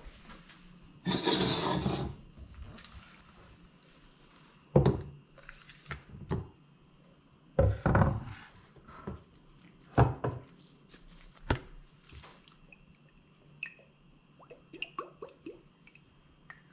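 Kitchen handling noises: a second-long rustle about a second in, then a series of separate knocks and clunks of kitchenware and a steel bowl being handled on the counter, with a few light clicks near the end.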